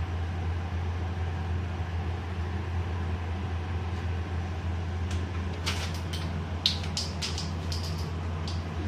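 A steady low hum, with a quick run of sharp clicks and pops in the second half.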